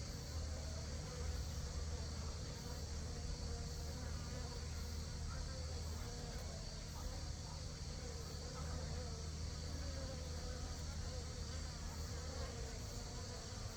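Native Asian honeybees (Apis cerana) buzzing steadily as they fly in and out of the hive entrance, with a steady high insect chirring behind.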